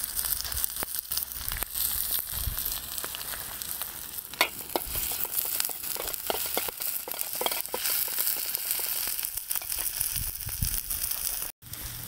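Diced onions sizzling steadily in melted sheep-tail fat in a steel sac pan over a wood fire. A metal spoon clicks and scrapes against the pan now and then as the onions are stirred.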